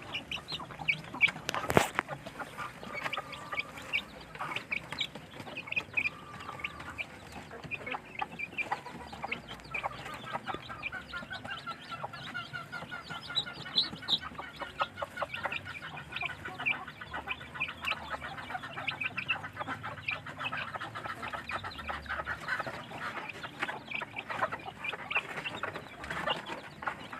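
Young chickens clucking and chirping while being fed, with many short taps and one sharp knock about two seconds in.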